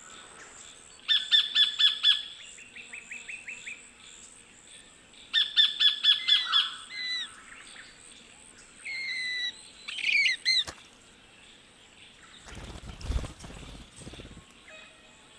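Sacred kingfisher calling: two quick bursts of sharp repeated notes, each trailing into a softer run of falling notes, then several squeaky downslurred calls. A low rustling rumble follows near the end.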